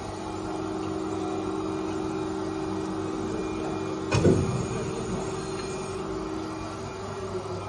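CNC lathe humming steadily with its spindle stopped, with one loud clunk about halfway through as the turned steel shaft is taken out of the chuck.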